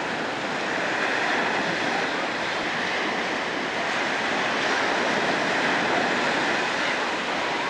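Ocean surf breaking and washing up the sand, a steady rush that swells slowly and eases off near the end.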